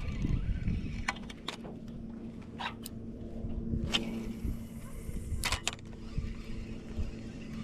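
Small boat motor running with a steady low hum that sets in about a second in, with about eight short sharp clicks and knocks from gear being handled aboard.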